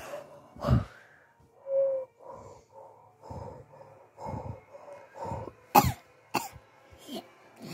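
A person making mock coughing and breathing sounds: a run of short puffing breaths, then a few sharp coughs near the end, acted out as a puppet coming round after pretend CPR.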